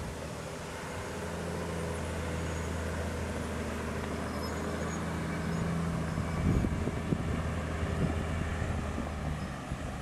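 Diesel engine of a Volvo log-hauling rig running steadily as it pulls loaded log trailers along a dirt road. A few low thumps come about six to eight seconds in.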